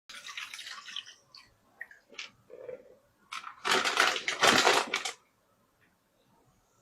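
Wet loess clay being crunched: a crackly stretch, then a few short crunches, then a loud dense crunching burst about three and a half seconds in that stops abruptly after a second and a half.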